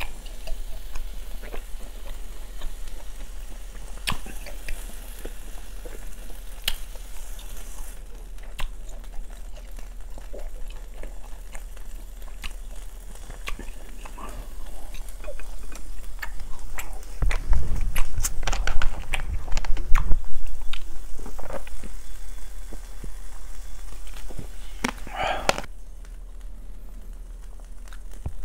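Close-miked eating: chewing grilled beef with wet mouth sounds, loudest about 17 to 20 seconds in. Scattered light clicks of chopsticks and a faint sizzle of beef on a small grill pan over a mini brazier are mixed in, with the sizzle in the first several seconds. A steady low hum runs underneath.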